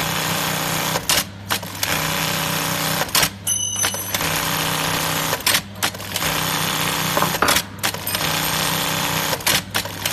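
DOIT DT1850 industrial bar tacking machine sewing one bar tack after another: about six bursts of rapid stitching, each lasting about a second and a half, with sharp clacks in the short pauses between tacks, over a steady low hum.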